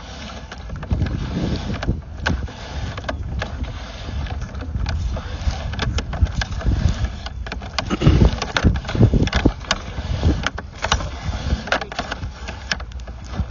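Sewer inspection camera being worked through a drain pipe: a steady low rumble with irregular knocks and clicks as the camera head and push cable bump along the pipe.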